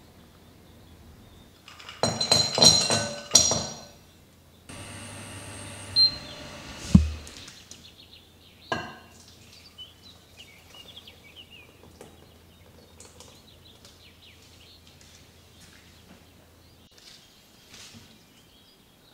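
Clinks and knocks of kitchen utensils and dishes. The loudest is a ringing clatter about two to three and a half seconds in, followed by a few sharp knocks and then light scattered taps.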